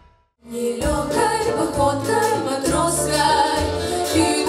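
A female vocal group singing together with a big band of saxophones, brass and drums. The music starts about half a second in, right after a brief silence.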